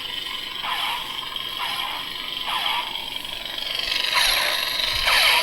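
Budget lightsaber's Kylo Ren sound font humming with its crackle while it plays blaster-deflection zaps, about one a second over the first three seconds. A louder sizzling burst follows about four seconds in.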